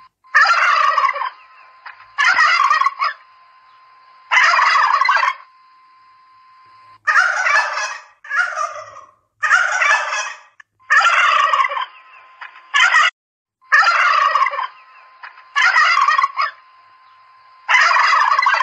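Domestic turkey toms gobbling, about ten rattling gobbles each under a second long, coming one after another with short pauses between.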